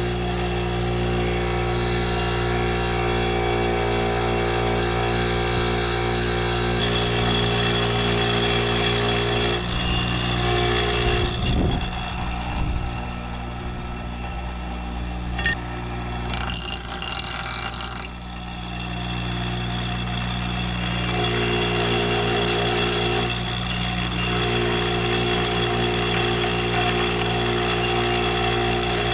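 A power tool running steadily on a steel plate, with a constant whine. It stops about a third of the way in and starts again about two-thirds in.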